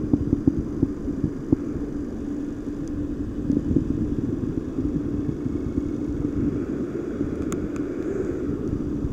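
Recirculating aquaculture system's water pump running: a steady hum over a low rumble, with small irregular crackles.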